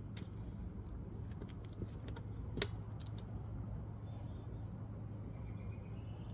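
A steady low hum with scattered light clicks, one sharper click about two and a half seconds in.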